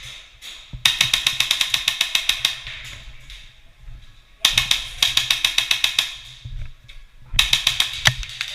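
Three bursts of rapid full-auto airsoft gun fire, a fast even rattle of shots, the first two about a second and a half each and the last one shorter.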